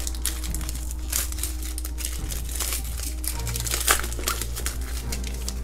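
Foil wrapper of a 2018 Donruss NASCAR trading-card pack crinkling as it is pulled open and the cards are drawn out, in many quick crackles.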